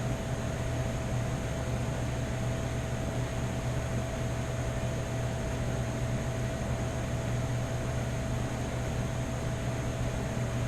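Steady background hum with an even hiss and a faint held tone, unchanging throughout; no distinct handling sounds stand out.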